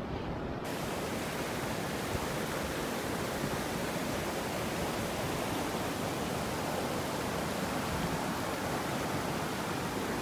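Steady rush of a shallow rocky river running over ledges and small cascades, a full even hiss of water that gets brighter less than a second in.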